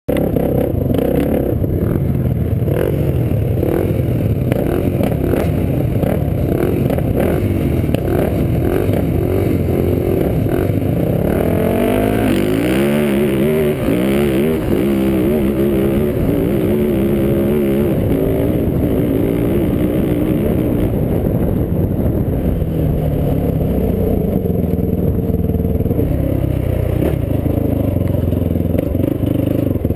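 Sport ATV engine running hard as the quad is ridden over a dirt track, its revs rising and falling as the throttle works, with rattling from the machine over the bumps.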